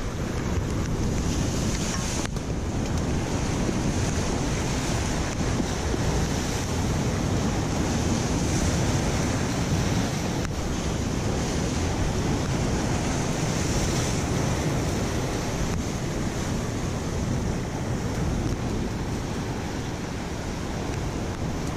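Ocean surf breaking on jetty rocks, a steady rush of water with wind buffeting the microphone.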